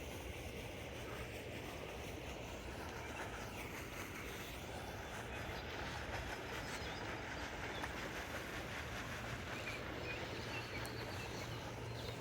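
Steady outdoor background noise with a low, even hum underneath and a few faint ticks.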